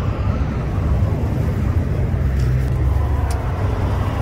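Steady low rumble of an idling vehicle engine, with two short sharp clicks a little after the middle.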